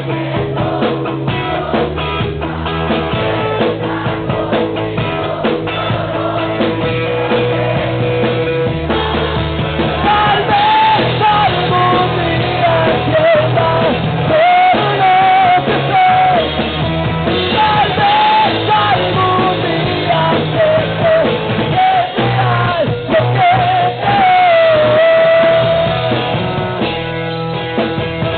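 Rock band playing live: drums, bass and guitars, with a wavering melodic lead line that comes in about ten seconds in and carries on until near the end.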